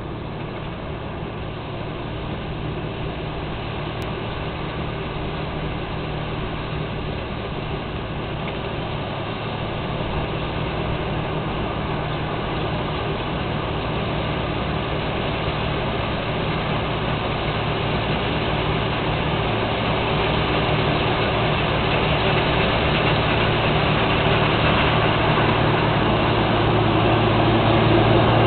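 Claas Mega 208 combine harvester running at work, cutting oilseed rape: a steady engine and machinery drone that grows gradually louder as the machine comes closer.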